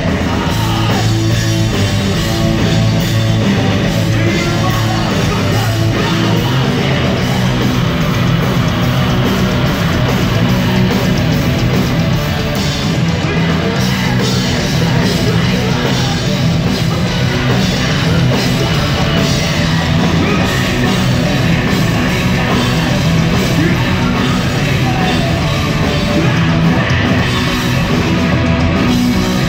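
Punk rock band playing live and loud: electric guitars, bass guitar and a drum kit in a steady, driving wall of sound, with shouted vocals.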